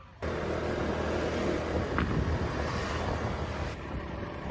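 Motor scooter running on the move, its engine a steady low hum under wind rushing over the microphone.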